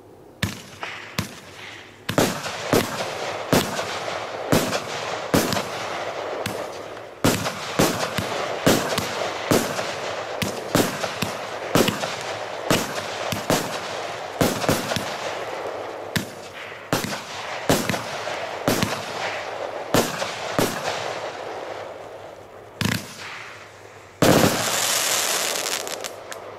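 Piromax Spherix 25-shot firework battery firing: sharp shots in quick succession, a little under one a second, with hissing and crackling in between. Near the end a dense, loud crackle from the crackling-willow effect.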